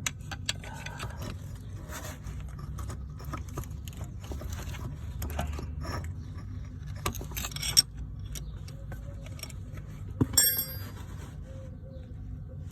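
Metal tools and brake parts clinking and scraping by hand at a van's rear brake caliper, with scattered clicks over a steady low hum. There is a sharp knock about eight seconds in and a ringing metal clink just after ten seconds.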